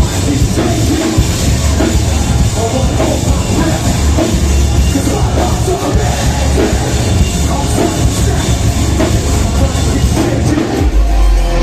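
Heavy metal band playing loudly live, with distorted guitars, bass and a pounding drum kit; a heavy low note comes in near the end.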